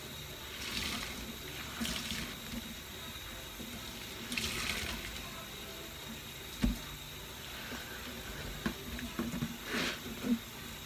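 Kitchen faucet running into a stainless steel sink while a soapy sponge is scrubbed under the stream, with swishing splashes now and then. A few knocks of dishware, the loudest a little past halfway.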